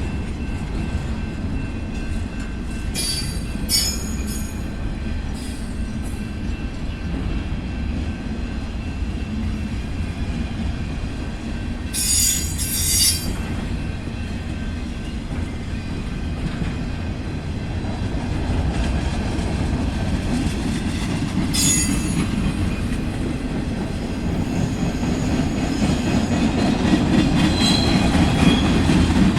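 Manifest freight train rolling by with a steady low rumble, broken by brief high-pitched wheel squeals about three seconds in, around twelve seconds in and again near twenty-two seconds; the rumble grows louder toward the end.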